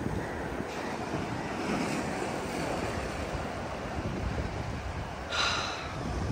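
Sea surf washing in over flat rock shelves, a steady rush of water, with wind blowing on the microphone. A short, higher-pitched sound cuts in briefly about five seconds in.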